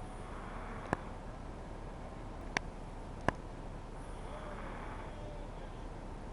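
A toddler softly snoring in his sleep, heard as two slow, soft breath swells over a steady background hiss. Three sharp clicks fall in the first half.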